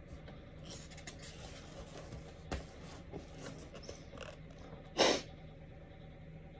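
Soft paper rustles and small clicks as the pages of a thick paperback book are handled and smoothed flat. There is a sharp tick about two and a half seconds in, and one short, louder rustle or sniff about five seconds in, over a faint steady room hum.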